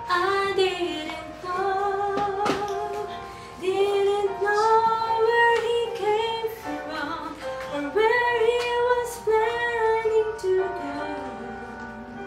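A woman singing a Christian song to instrumental accompaniment, holding long, sustained notes.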